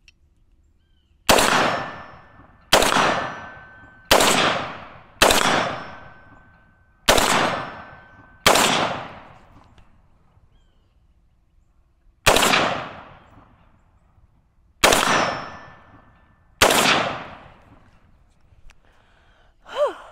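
Radical Firearms FR16 AR-15 rifle fired in slow, deliberate semi-automatic shots: nine sharp reports a second or a few seconds apart, each ringing off over about a second.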